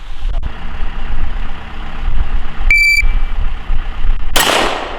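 A shot timer gives one short electronic start beep, and about a second and a half later a single gunshot cracks out at the start of a timed drill.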